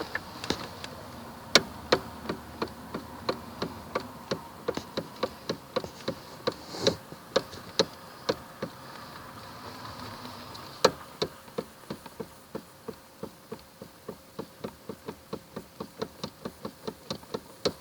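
Knocking from a Toyota Camry's steering: sharp knocks at about three a second, stopping for a second or two in the middle, with one louder knock about eleven seconds in. This is the steering knock that is the car's fault.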